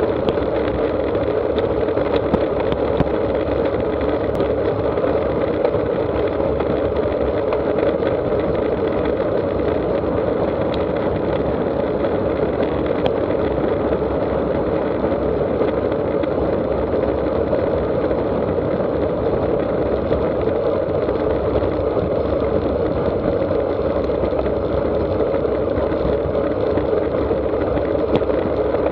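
Steady rushing wind and tyre noise picked up by a handlebar-mounted camera on a road bike riding at about 26 to 29 mph, an even drone without breaks.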